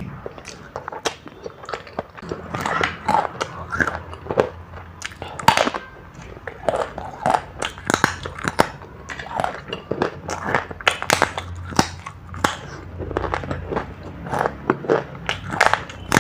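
Close-miked chewing and biting of a person eating, dense with irregular sharp crunchy clicks and wet mouth sounds.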